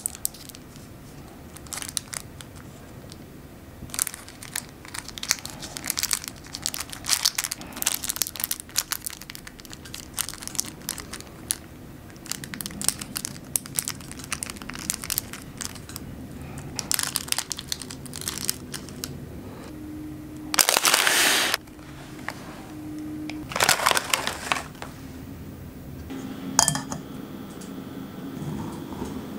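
Paper crinkling and crackling as hands fold and crease a sheet of baking paper into an origami water balloon, in many short sharp crackles. About two-thirds of the way in come two louder, longer rushes of noise a few seconds apart.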